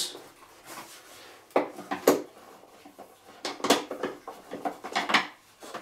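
Clicks and light knocks of a screwdriver and the hard plastic casing of a Kärcher pressure washer being handled as its cover screws come loose: a couple of knocks a second and a half to two seconds in, then a run of quicker clicks near the end.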